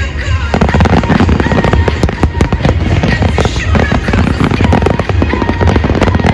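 Fireworks display: aerial shells bursting in quick succession, many sharp reports over a deep rumble, with music playing along.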